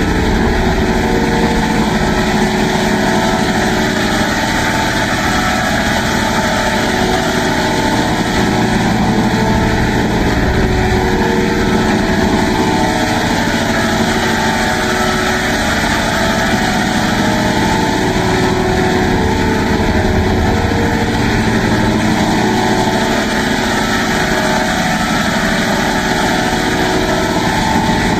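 Loud, steady droning noise processed with an audio effect, with hollow notches in its tone that drift slowly up and down.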